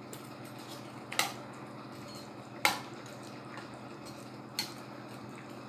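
Metal turner clinking against the side of a stainless-steel pot while stirring a chunky stew, three sharp clinks with the middle one loudest. A steady low hum runs underneath.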